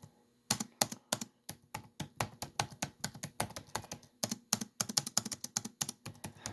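Typing on a laptop keyboard: fast, uneven key clicks that start about half a second in after a brief pause.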